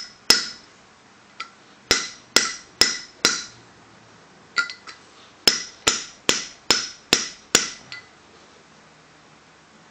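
Hammer blows on a coupling used as a driver, punching a frozen outer wheel-bearing race into a 1997 Volkswagen Cabrio's hub. About a dozen sharp strikes, each with a short metallic ring, come in three runs, then stop about eight seconds in. The race is not yet fully seated.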